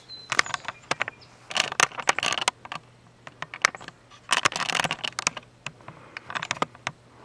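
Handling noise from a video camera being picked up and reframed: four bunches of sharp clicks, knocks and rustling against the camera body.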